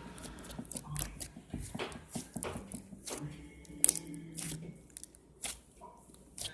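Slime being worked by hand, squished and stretched with irregular sticky clicks and crackles; a steady pitched hum sounds for about a second and a half midway.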